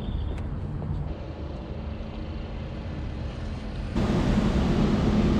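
Steady low vehicle engine rumble that jumps abruptly louder about four seconds in.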